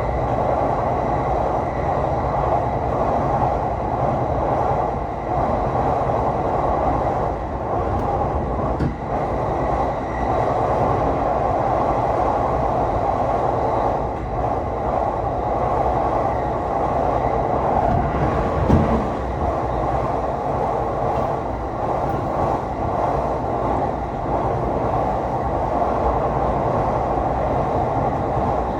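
Tokaido Line electric train running along the track, heard from inside the carriage: a steady rumble of wheels and motors, briefly louder about two-thirds of the way through.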